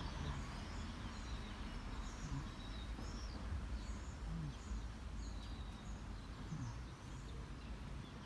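Small birds chirping, many short calls scattered throughout, over a steady low outdoor rumble.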